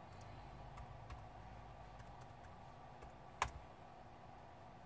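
Faint light clicks and taps of hands working a laptop, with one sharper click about three and a half seconds in, over a low steady hum.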